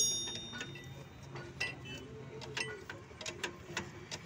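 Adjustable wrench clicking against the gear-oil pipe union on a tractor's hydraulic distributor as the fitting is tightened: light, irregular metallic clicks, a few a second, opening with a ringing clink that fades out.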